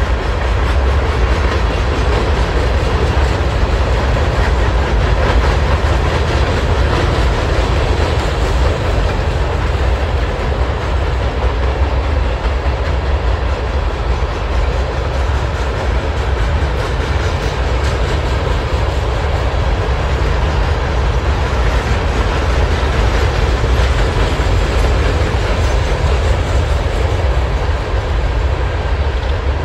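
Freight train of coal cars rolling past, steel wheels running steadily on the rails.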